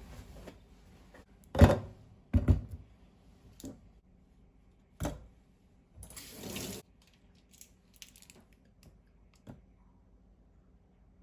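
Household handling sounds: several sharp knocks and clatters, the loudest about one and a half seconds in, and a short rush of running water lasting under a second, about six seconds in.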